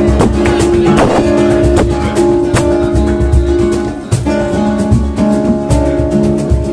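Flamenco guitars playing a bulería, strummed and picked with many sharp percussive accents.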